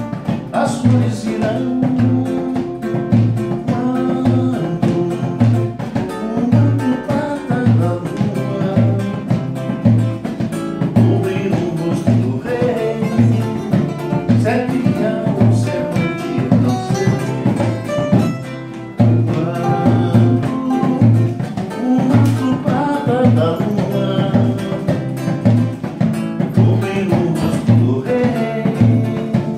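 Samba-enredo played on a strummed acoustic guitar and a wooden hand drum keeping a steady beat about twice a second, with a man's voice singing the melody.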